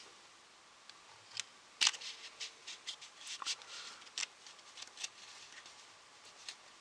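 Memento Mori playing cards clicking as the two halves of the deck are pressed and weaved together edge to edge in a faro shuffle: irregular sharp little clicks, the loudest about two seconds in.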